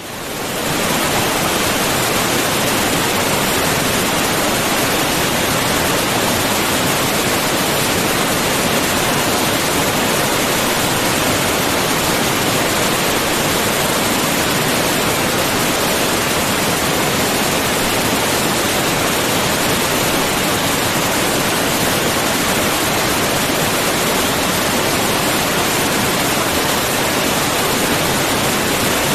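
Waterfall, a loud steady rush of falling water, fading in over the first second.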